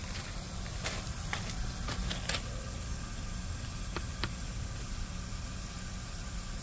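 Pool pump running with a steady low hum, starting up to prime. A few light clicks are heard, two close together about four seconds in as the controller's keypad is pressed.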